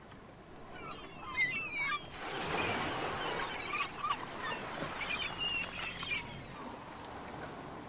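Seagulls giving a series of short, gliding calls over the wash of sea surf, which swells up about two seconds in and eases near the end.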